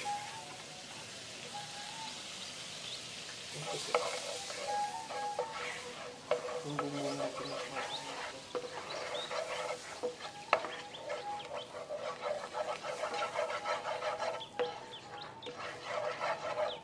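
Salted egg yolk sauce sizzling in a hot non-stick frying pan while a wooden spatula stirs it and scrapes the pan, with quick scraping clicks from about four seconds in.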